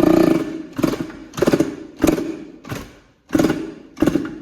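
Yamaha YZ85's 85 cc two-stroke single being kicked over again and again, sputtering in short bursts about every two-thirds of a second without catching. The engine had locked up and its crankshaft is failing.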